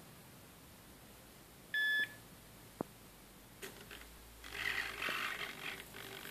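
A single short electronic beep from the FPV goggles' headtracker, then a click. From about three and a half seconds in, the hobby servos of the camera pan-tilt mount whir and buzz in spurts as the mount swings round, following the headtracker.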